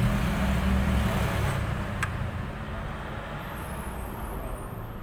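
Hyundai Grace's D4BA diesel engine running while its newly replaced oil flexible hose is checked for leaks, with no leak showing. The low rumble is louder for the first second and a half, then settles lower. One sharp click comes about two seconds in.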